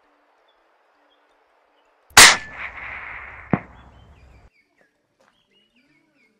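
A single scoped rifle shot, very loud and sharp, about two seconds in, followed by about a second of rustling noise and then a second, shorter sharp crack.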